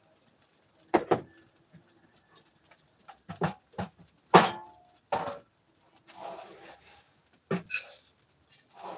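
A string of separate knocks and clatters of objects being handled, some with a brief ring, the loudest about four and a half seconds in, with a short rustling stretch a little after six seconds.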